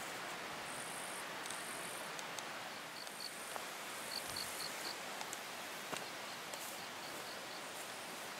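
Crickets chirping in grass over a steady hiss. There are short repeated chirps in quick runs and brief high trills about half a second long, with a few faint sharp clicks.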